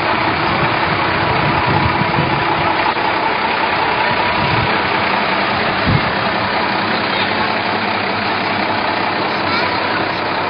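Lorry engine running at low speed as a procession float rolls past, with voices in the background. A single thump about six seconds in.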